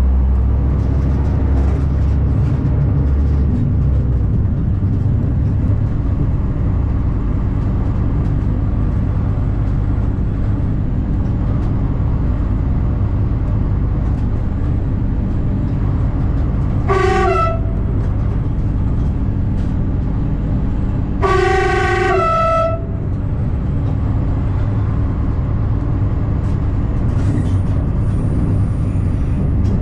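Diesel railcar VT654 running, its engine and wheels heard from inside the driver's cab, with the horn sounded twice: a short blast a little past halfway and a longer one about four seconds later, each rising in pitch as it ends.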